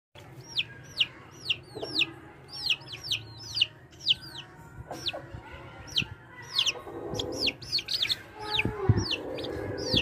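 Parrot-nose aseel chicks peeping: a steady string of short, high, falling peeps from several chicks, often overlapping, two or three a second. Some lower, duller sounds join in over the last few seconds.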